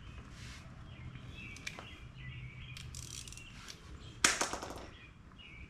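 Hand work on the door armor bolts: light clicks, then one sharp clatter about four seconds in that rattles briefly, with birds chirping in the background.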